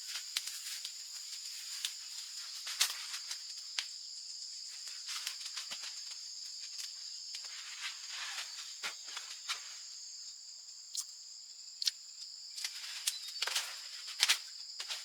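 Steady high-pitched insect chorus, with scattered short sharp clicks and crackles over it and a few louder ones near the end.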